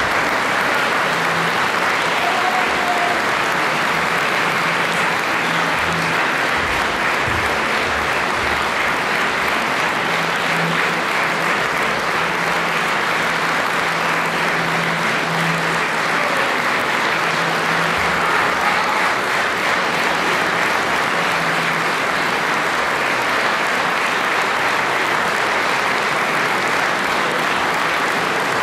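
Audience applauding steadily after a performance.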